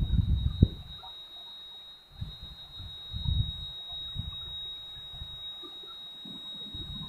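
Low, irregular rumbling gusts of wind on the microphone, strongest in the first second and returning in weaker puffs. A steady high-pitched whine runs underneath throughout.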